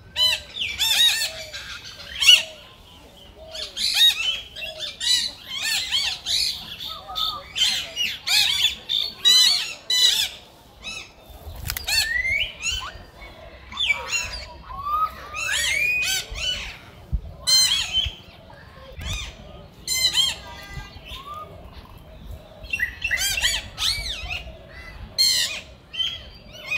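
Monkeys calling in quick runs of short, high-pitched squeals and shrieks that slide up and down in pitch, with brief pauses between runs.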